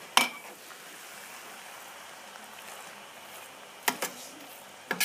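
A slotted spoon stirring cooked rice and meat in a pot, with a few sharp knocks of the spoon against the pot over a steady hiss.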